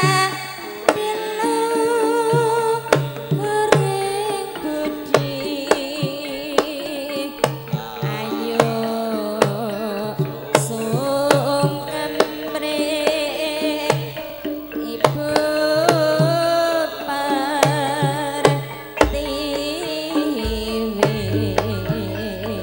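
A female Javanese singer (sindhen) singing an ornamented, wavering melody into a microphone, over gamelan accompaniment led by repeated kendang drum strokes.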